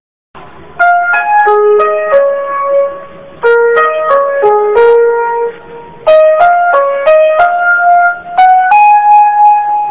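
Background music: a simple keyboard melody played one note at a time, in three short phrases.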